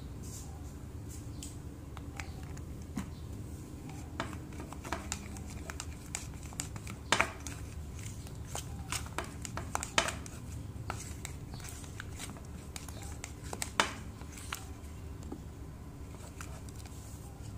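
Metal spoon stirring a thick white glue and hand-lotion slime mixture in a plastic bowl: irregular clicking and scraping as the spoon works the bowl, busiest in the middle, with a few sharper knocks.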